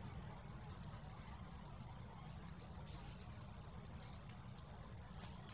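Steady high-pitched drone of insects, crickets or cicadas, with a low rumble underneath.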